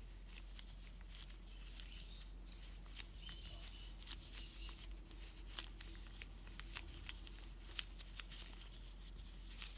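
Rubber-gloved fingers kneading and squishing a small lump of translucent Cosclay polymer clay to mix in alcohol ink: faint sticky clicks and crackles of glove rubber on the clay.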